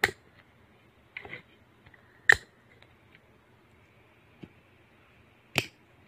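Several sharp clicks and knocks: one at the start, a quick pair about a second in, the loudest a little over two seconds in and another loud one near the end. Under them runs a faint, steady low hum.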